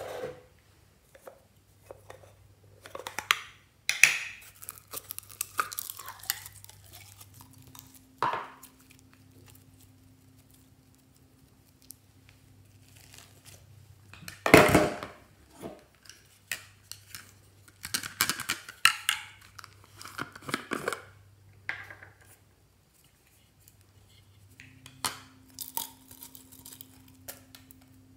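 Hollow yellow plastic duck-shaped containers being handled and pulled open over a glass baking dish: irregular plastic clicks, knocks and rustles, with one louder knock about halfway through.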